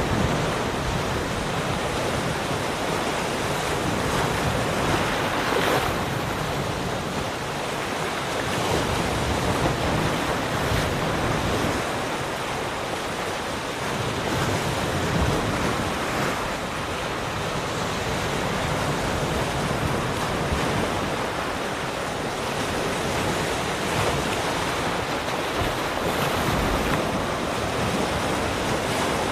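Ocean waves breaking and washing on a shore, a continuous surf hiss that swells and eases slowly, with some wind.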